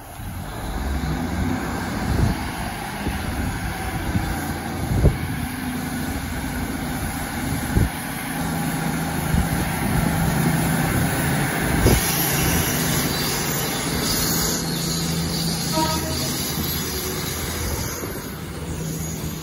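Transport for Wales Class 150 diesel multiple unit running under power as it passes close beneath, its engines giving a steady low drone. A few sharp thumps come from the wheels over rail joints.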